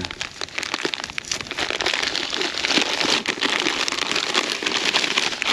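Dry feeder groundbait pouring out of its packet into a container: a continuous rustling patter of crumbs.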